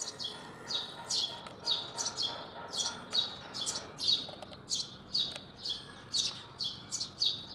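A small bird chirping over and over, a quick run of high chirps that each sweep downward, two or three a second.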